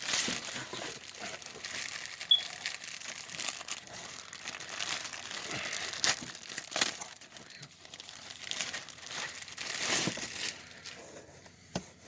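Packaging around a T-shirt being crinkled, handled and torn open, with many sharp crackles and rips. It dies down about ten and a half seconds in.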